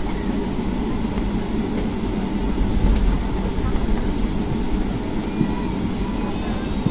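Cabin noise of a Boeing 757-200 taxiing: a steady low rumble of the engines at taxi power and the wheels rolling over the taxiway, heard from inside the cabin. The rumble swells briefly about three seconds in.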